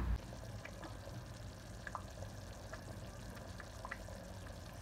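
Thick tomato sauce boiling in a steel pot: faint bubbling with a few scattered soft pops.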